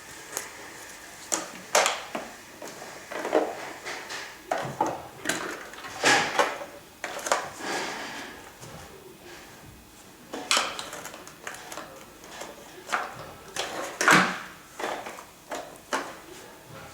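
A Samsung VC 5915SN3G vacuum cleaner and its attachments being handled: irregular clicks, knocks and short scrapes, the loudest knock about fourteen seconds in.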